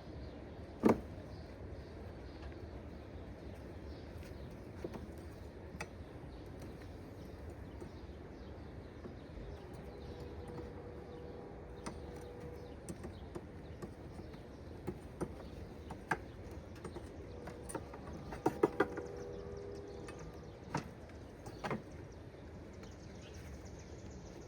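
Wooden beehive frames and hive parts being handled during an inspection: scattered sharp knocks and clicks, the loudest about a second in and a quick run of three near the end, over a low steady background.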